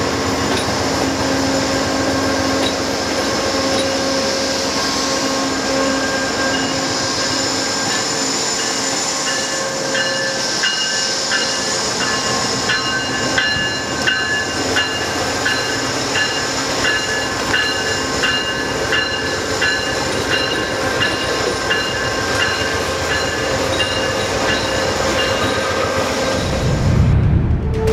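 Amtrak train hauled by GE Genesis diesel locomotives rolling through a station, with the running of the locomotives and wheels on rail mixing with several steady ringing tones. A run of evenly spaced clicks comes through the middle, and music cuts in at the very end.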